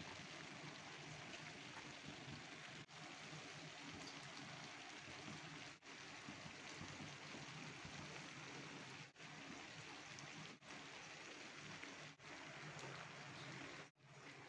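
Faint steady hiss with a low hum underneath, dropping out briefly about six times.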